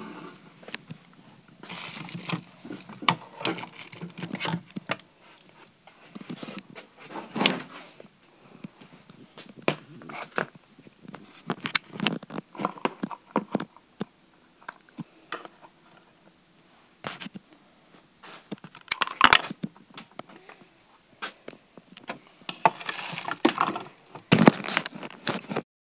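Handling noises of a plastic ice cube tray and freezer: scattered clicks, knocks, clatter and rustling as the tray is moved and slid onto a freezer shelf, with louder clattering about three-quarters through and again near the end.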